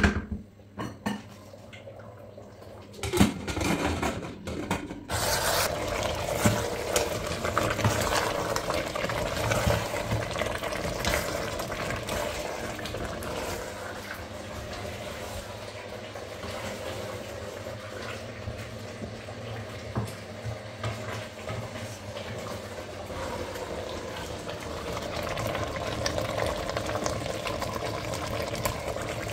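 Pieces of buffalo tongue frying in a stainless steel pot, giving a steady sizzle, while a wooden spatula stirs them and knocks against the pot. The knocks are loudest at the start and about three to five seconds in, and the sizzle holds steady from about five seconds in.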